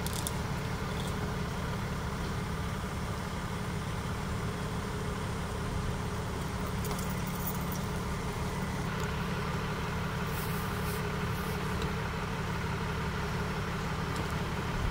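Steady low rumble of a running vehicle engine, with a faint even hiss above it.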